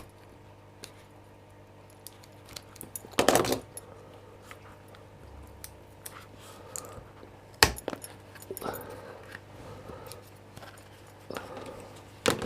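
A lock pick being unwrapped from its packaging by hand: soft rustling and small ticks and knocks, with a loud short rustle about three seconds in and a sharp click near eight seconds.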